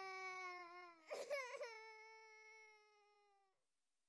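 A toddler crying: a long, held wail, a short gasping sob about a second in, then a second drawn-out wail that fades out near the end.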